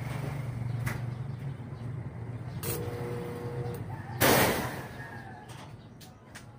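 A motor vehicle engine running steadily in the background. About three seconds in, a steady two-note beep lasts about a second. Just after four seconds comes a loud, sudden burst of noise that fades within half a second.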